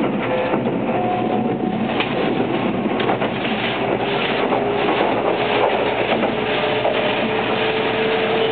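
Running noise heard inside the cabin of a Kintetsu 22600 series 'Ace' limited-express train moving at speed: a steady rumble of wheels on rail with occasional short clicks, and a faint whine that slowly rises in pitch.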